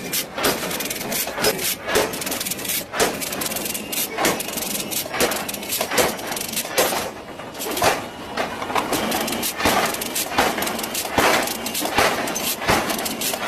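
Forging power hammer striking a red-hot steel billet, upsetting it into a disc: a run of heavy blows, coming irregularly about one to two a second, with lighter knocks between them.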